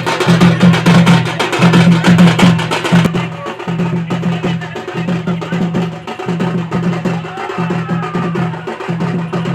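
Loud percussion-driven music with a steady, repeating drum beat. A dense, fast clatter of higher percussion stops about three seconds in, and the drum beat carries on.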